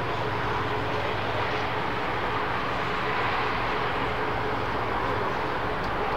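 Steady, distant jet-engine noise from an Airbus A320 on the runway: an even rush with a faint steady whine, mixed with passing road traffic.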